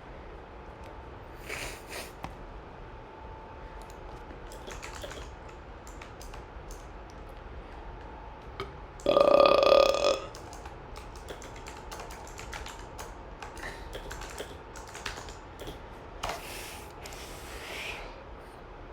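A person's deliberate burp, a single loud, pitched belch lasting about a second, midway through. Faint, scattered clicks of typing on a computer keyboard sound through the rest.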